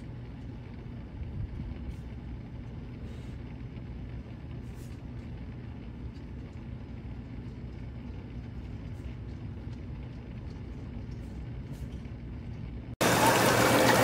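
Inflatable hot tub's pump unit running with a steady low hum, a few faint clicks over it. About a second before the end it cuts abruptly to much louder rushing water from spa jets.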